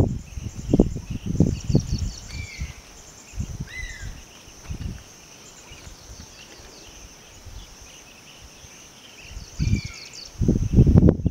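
Insects chirping steadily and high in the forest, with a bird giving a few short falling whistled notes. Low rumbling bursts of noise come and go, loudest at the start and again near the end.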